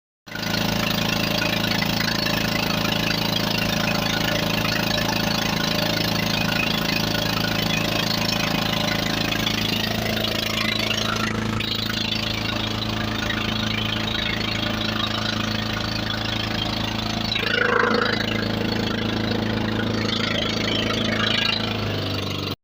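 Engine of a motorized banca, a Filipino outrigger boat, running at a steady speed. It starts suddenly just after the start, and a short higher sound rises over it about eighteen seconds in.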